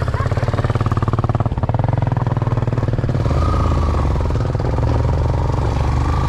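Motorcycle engine running at low trail speed, heard from the rider's seat, with a rapid, even pulsing that smooths out about halfway through.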